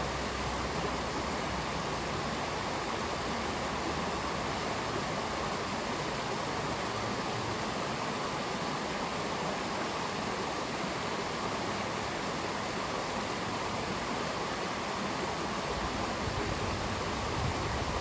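Shallow rocky stream rushing steadily over stones and small cascades, an even, unbroken rush of water. A low rumble comes in near the end.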